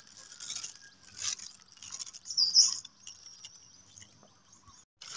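Scattered rustling and crunching of leaf litter and undergrowth underfoot. A short high bird chirp comes about two and a half seconds in, followed by a faint, thin high tone.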